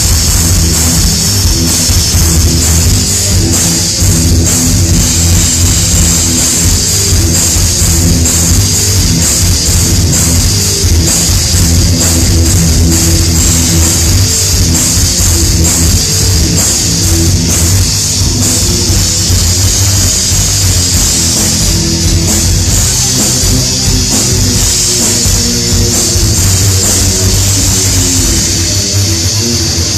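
Metal band playing live and loud: distorted guitars over a drum kit.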